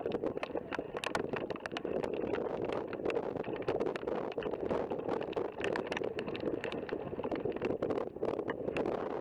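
Wind buffeting the microphone: a steady rush with rapid, irregular crackling clicks.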